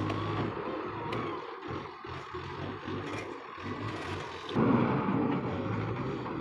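Road traffic: vehicle engines running and tyre noise, rising to a louder stretch about four and a half seconds in.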